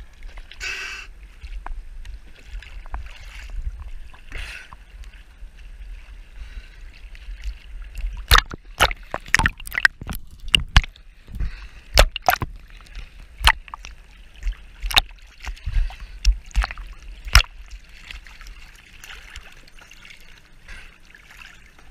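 Sea water sloshing and gurgling at the surface. About eight seconds in comes a run of sharp knocks and clicks at irregular intervals lasting about ten seconds, then the sloshing returns.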